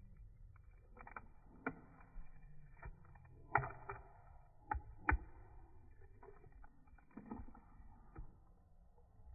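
French bulldog chewing a snack, with irregular sharp crunches and mouth smacks. The loudest come about three and a half and five seconds in.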